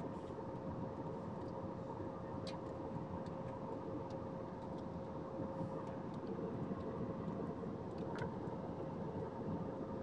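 Jet airliner cabin noise in cruise: a steady rush of engine and airflow noise with a constant hum, heard inside the cabin. Two faint clicks, about a quarter of the way in and near the end.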